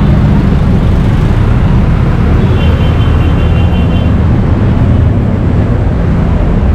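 Street traffic close by: a truck engine and motorcycles running, a loud steady low drone, with a faint high squeal briefly about halfway.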